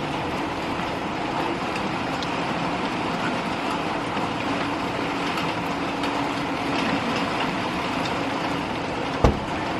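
A steady rushing noise with a faint hum in the middle, and one sharp knock near the end.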